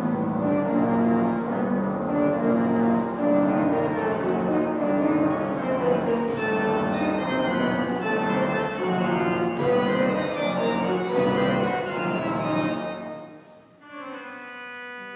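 Church pipe organ playing a loud passage of full, sustained chords over deep bass notes, starting abruptly. Near the end it drops to a quieter, steady held chord.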